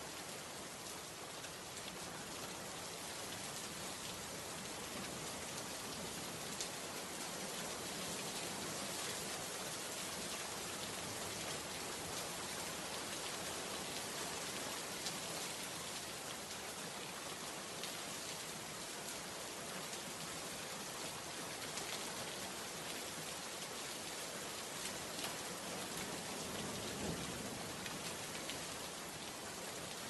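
A steady, even hiss that sounds like rain, with a few faint ticks scattered through it.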